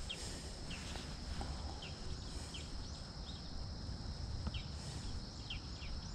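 Short, high, falling bird chirps repeating every half second or so, over a steady thin high-pitched tone and a low rumble of wind on the microphone.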